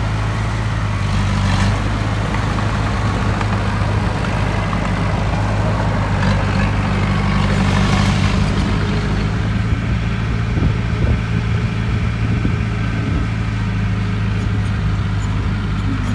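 Heavy diesel engine of earthmoving machinery running steadily at a low, even pitch, with a short rush of noise about eight seconds in.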